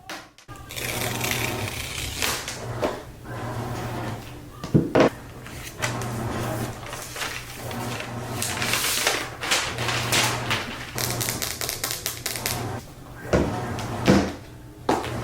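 Hands opening a MacBook Air's packaging: paper and cardboard rustling and scraping, with a few sharp knocks and taps, the loudest about five seconds in and again near the end, over a steady low hum.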